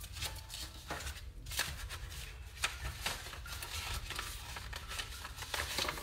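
Scattered light rustles and clicks of handling noise over a low steady hum.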